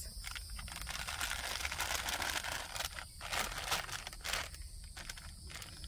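Crinkling and rustling of a disposable urinal bag being unrolled and opened by hand, dense for the first few seconds and then thinning to a few scattered crackles.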